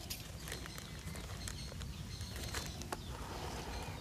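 Light scattered clicks and rustles of pruning shears and leafy branches being handled, with no loud cut.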